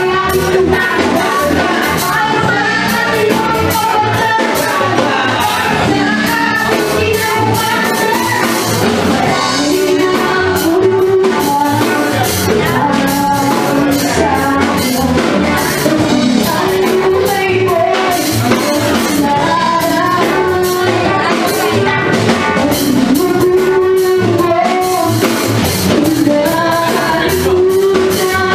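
Live rock band playing a song: a singer's voice over electric guitar, bass guitar and drums.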